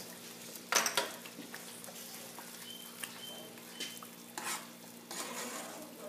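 Tomato purée sizzling quietly in bacon fat in a saucepan on a gas stove, over a faint steady hum. A few light knocks and clinks of cookware come through, the loudest about a second in.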